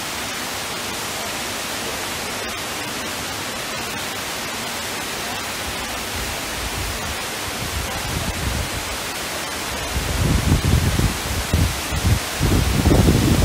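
Steady rushing hiss of the Cloud Forest's large indoor waterfall. From about eight seconds in, low uneven rumbling builds up and becomes the loudest sound near the end.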